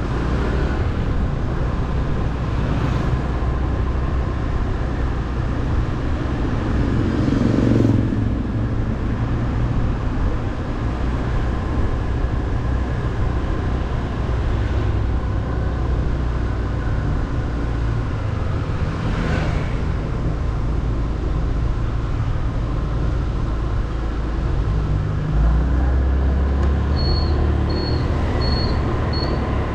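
Motorbike engine running under way, with steady road and wind noise. The engine rumble grows heavier near the end, where four short high beeps sound.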